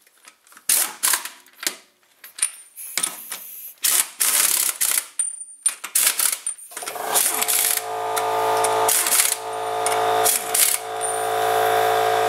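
Pneumatic impact wrench spinning on and hammering lug nuts tight on a car wheel, in short bursts and runs of up to about a second. About seven seconds in, a steady machine hum sets in and runs under the last few bursts.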